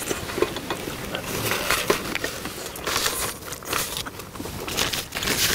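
Close-up eating sounds of several people chewing and smacking on saucy chicken and rice, with irregular short clicks of chopsticks and spoons.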